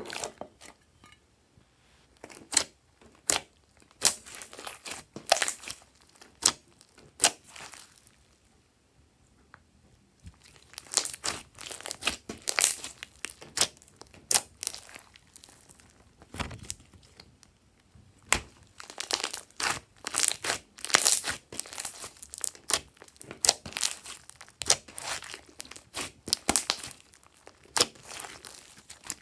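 Glossy slime being kneaded, pressed and stretched by hand, giving irregular sharp pops and crackles of trapped air with sticky squishing. The pops come sparsely at first, stop briefly, and come thick and fast through the second half.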